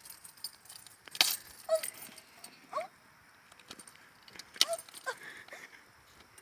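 Keys jangling and clicking against an aluminium drink can, with sharp metallic cracks about a second in and again about four and a half seconds in, as the can is punched open and cracked to be shotgunned.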